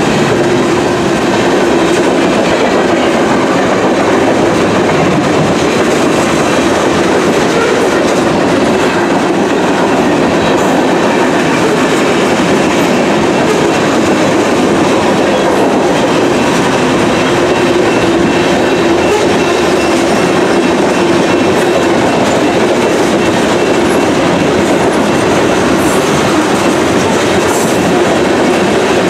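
Freight train cars rolling past close by, a long string of boxcars and then covered hopper cars: steel wheels running on the rails in a loud, steady rumble with a clickety-clack.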